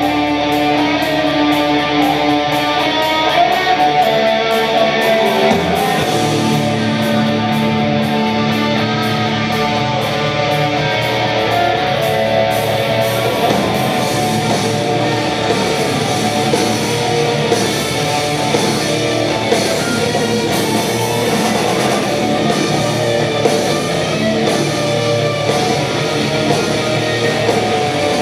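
Live rock band playing: electric guitars, bass guitar and drum kit.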